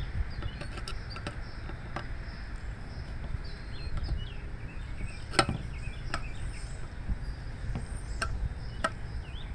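Irregular sharp clicks of a screwdriver working Phillips screws out of a Briggs & Stratton Classic carburetor on its plastic gas tank, the loudest about halfway through, over a steady low rumble.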